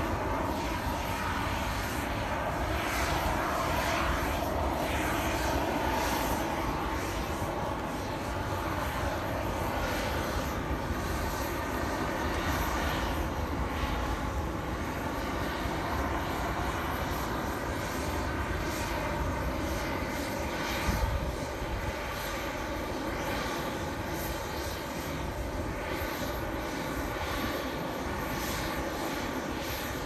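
Steady drone of jet airliners, a whine of several steady tones over a low rumble.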